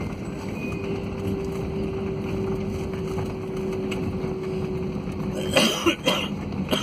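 Steady roar inside an airliner cabin during the landing rollout, the jet's engines and wheels running on the runway with a steady hum, then a few sharp knocks and rattles near the end.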